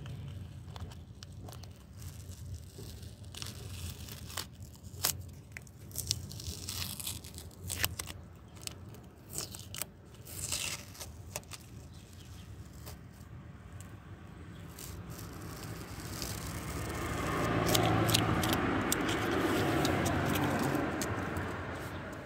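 Masking tape being peeled off a freshly spray-painted car body panel, in a run of short crackling rips. In the last third a broad rushing noise swells up, louder than the tape, and fades away again.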